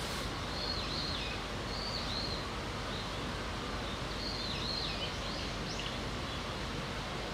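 Steady outdoor background noise with small birds calling: short, swooping chirps about a second in, again at two seconds, and a run of them around five seconds.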